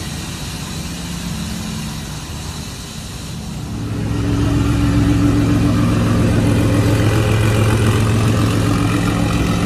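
2018 Ford F-350 dually's engine running, its exhaust blowing through a soda can pushed into the tailpipe, cut with wings and punched with BB holes to make the truck sound meaner. The steady note grows louder about four seconds in and then holds.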